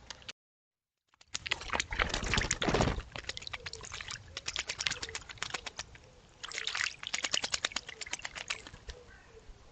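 A bird bathing in a shallow pond: rapid runs of splashing and flicking water, in two bouts, the first the loudest.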